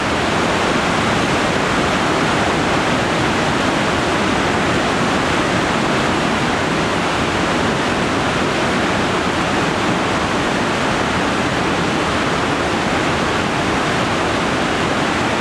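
Fast mountain river rushing through white-water rapids over boulders: a steady, loud rush of water.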